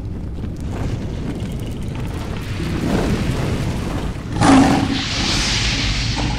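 Cinematic fire logo-reveal sound effect: a low rumble that swells, a sudden boom about four and a half seconds in, then a rushing, fiery hiss.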